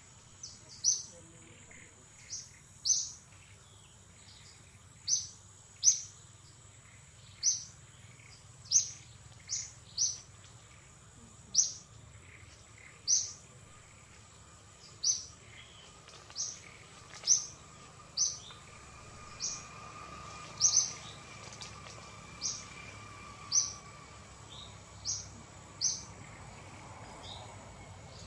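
A bird calling over and over: short, sharp high chirps about once a second or so, over a faint steady high-pitched tone.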